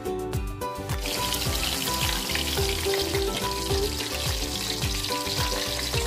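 Flour-coated chicken wings frying in oil in a wok: a steady sizzle that starts about a second in. Background music with a steady beat plays throughout.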